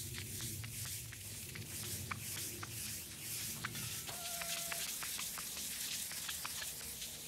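Small applicator pad rubbing finish into a walnut slab tabletop by hand, a steady hiss of repeated back-and-forth strokes.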